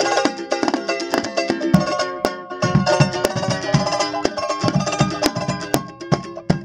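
Two ukuleles strummed briskly together in Cook Islands style, with a drum beaten along in sharp strokes.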